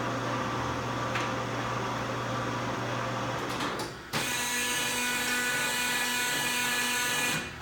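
LeBlond Regal metal lathe headstock running under power as its spindle speeds are stepped up. The sound drops briefly about four seconds in and comes back with a stronger gear whine, then drops again near the end as the speed changes.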